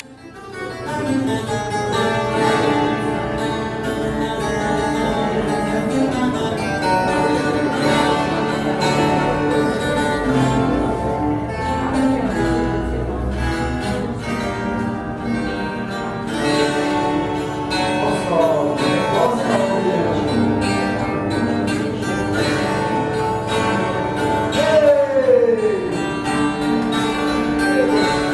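Instrumental music with guitar: a sustained, melodic passage with a few sliding notes.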